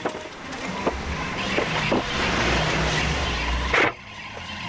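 A motor running with a low rumble, with a few sharp knocks over it; the sound cuts off suddenly near the end.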